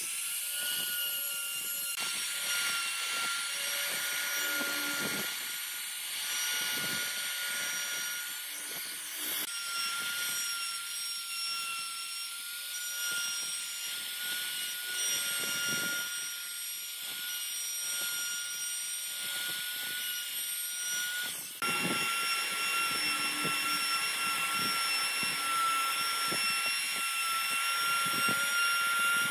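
Compact electric trim router running at full speed and cutting short grooves into a wooden clock face: a steady high-pitched motor whine with the rasp of the bit in the wood, jumping abruptly in level twice.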